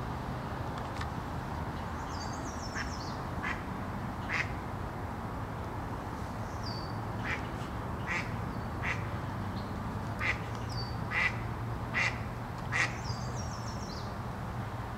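Duck quacking: about eleven short quacks, closer together in the second half. Twice a higher bird call slides downward. A steady low hum runs underneath.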